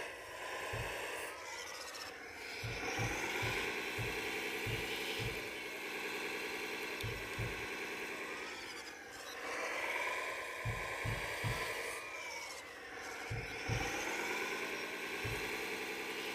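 Motors of a 1/14-scale CAT RC excavator whining as it digs and swings. The whine rises in pitch as each movement starts, then holds steady, in several runs with short dips between them. Brief low thuds come through at irregular intervals.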